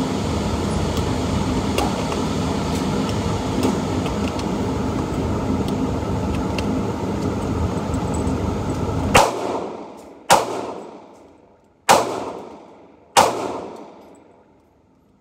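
Four gunshots about a second and a half apart, each ringing on in a long echoing tail. Before them there is a steady rushing noise that cuts off suddenly at the first shot.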